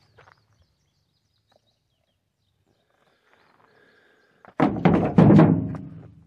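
Rocks dropped and clattering together, a quick run of loud knocks about four and a half seconds in that dies away over the next second.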